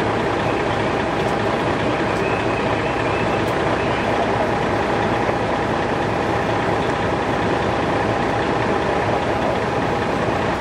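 Fire engine running steadily at a working fire, a loud even rumble with a steady hum over it.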